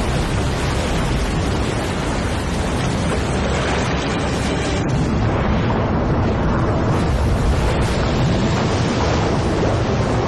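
Loud, steady rushing roar of churning water, an underwater surge sound effect with a deep rumble beneath it.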